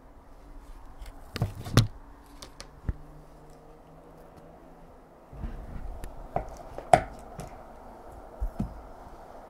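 Metal fork working cubes of butter into flour in a mixing bowl: soft scraping with a few sharp clinks, the loudest about seven seconds in.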